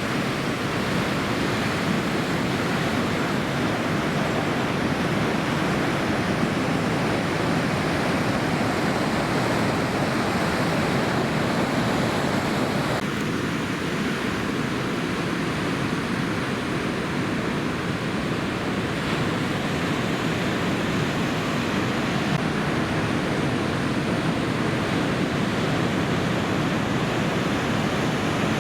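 Ocean surf from a typhoon swell breaking on a reef: a steady, dense rush of water noise, whose tone shifts slightly about halfway through.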